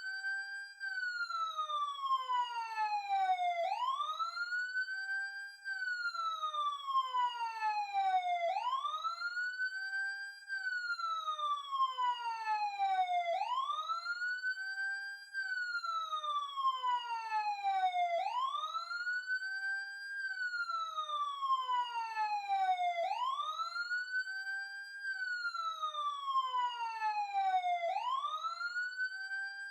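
Police siren in wail mode: its pitch sweeps up quickly, holds briefly at the top, then falls slowly and evenly, the cycle repeating about every five seconds.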